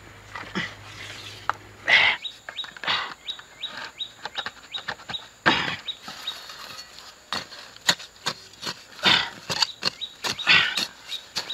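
Irregular knocks and scrapes of a hand tool digging and tamping soil around the base of upright bamboo poles, with a bird chirping a quick repeated call partway through.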